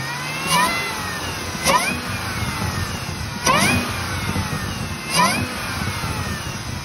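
Supercharged 6.2-litre LT4 V8 of a 2018 Camaro ZL1 running and blipped four times. A loud whine rises with each blip and falls away after, almost like a bad power steering pump whine. The owner puts it down to worn supercharger bearings and a bad coupler.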